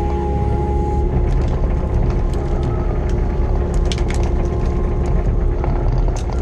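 Kobelco mini excavator's diesel engine running steadily under load, heard from inside the cab, as its log grab rips roots and brush out of the ground. Wood cracks and snaps over the engine, in bursts about four seconds in and again near the end.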